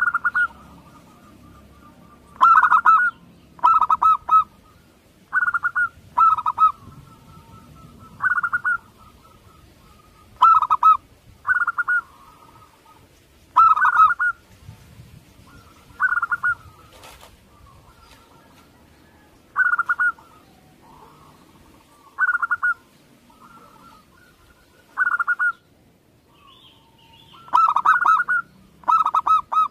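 Zebra dove (perkutut) cooing: short, rapid, stuttering coo phrases repeated every two to three seconds.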